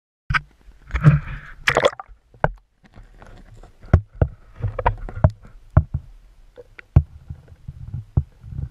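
Muffled knocks, clicks and low rumbling water noise picked up by an underwater camera beneath lake ice. A dense cluster of knocks comes about a second in, then single sharp knocks at irregular intervals over a low rumble.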